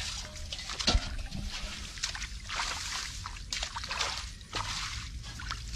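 Shallow muddy water sloshing and splashing as hands dig through it and a metal basin bails it out, with one sharp knock about a second in.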